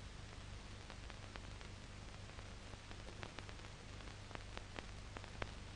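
Faint steady hiss and mains hum with scattered clicks and crackles: the noise floor of an archival film soundtrack, with no other sound.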